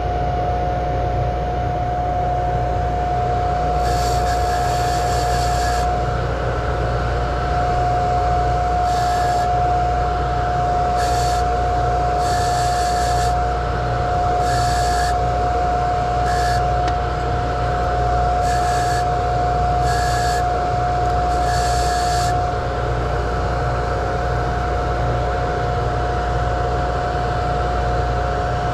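Jeweller's bench polishing motor running steadily, a constant hum with a steady whine over it. A short hiss comes and goes about nine times during the first two-thirds, as the gold bezel is worked at the buffing wheel.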